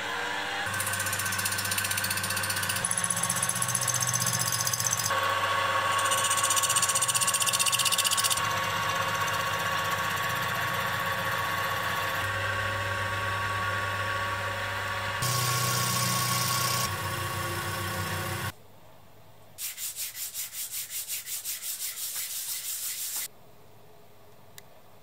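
Benchtop drill-milling machine running just after being switched on, its motor spinning up and then running steadily with a constant whine, the sound changing abruptly several times. About two-thirds of the way in it drops away and a quieter rapid pulsing, about four a second, follows for a few seconds.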